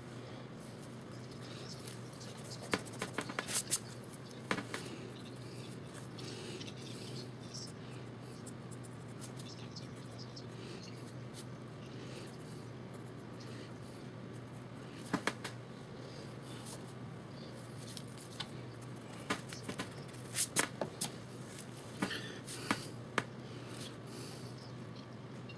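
Pencil on sketchbook paper: small scratches and sharp taps in short clusters of clicks, over a steady low hum and hiss.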